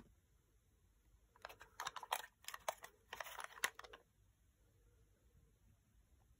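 Handling noise: a quick run of clicks and rustles, from about a second and a half in until about four seconds, as an air pistol is turned over in the hand.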